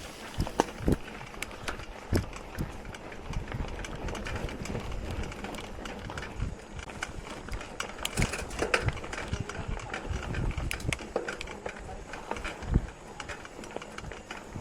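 Mountain bike ridden over a rough dirt trail: frequent knocks and rattles from the bike over bumps and roots, over a low, uneven rumble.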